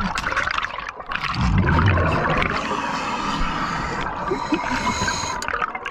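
Underwater sound of a scuba diver's exhaled bubbles venting from the regulator, a continuous bubbling rush with a stronger burst about a second and a half in.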